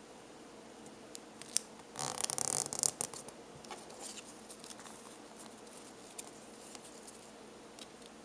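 Lined paper being folded and creased by hand: scattered small crinkles and taps, with a louder stretch of rustling and rubbing about two seconds in that lasts about a second.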